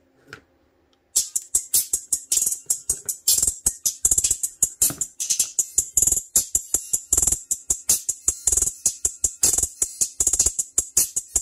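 Music with a fast, steady percussive beat played through a small JBL car-audio tweeter, so mostly the crisp high end comes through, with little bass. It starts about a second in, just after a faint click.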